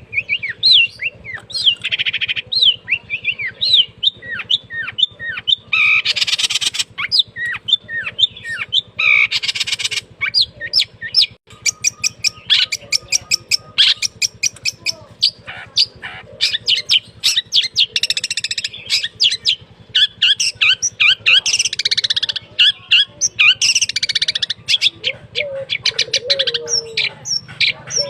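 Caged long-tailed shrike (cendet) singing non-stop in a fast, varied stream of sharp chirps and quick pitch-sliding notes, broken up by a few harsh rasping notes. It is singing at full pitch as soon as its cage cover comes off.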